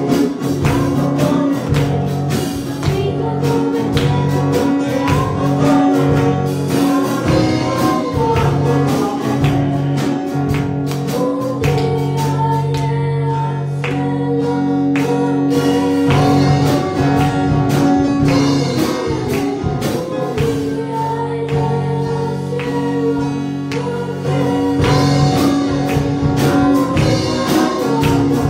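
Spanish-language Christian worship song: singing over an instrumental backing with a steady beat.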